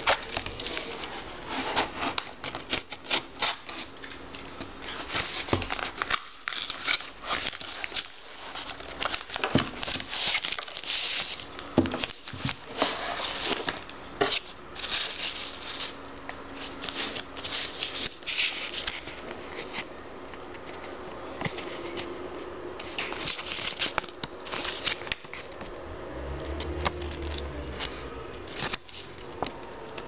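A cardboard box slid open and plastic wrapping and a paper instruction leaflet handled by hand, making irregular crinkling and rustling with scattered taps and scrapes.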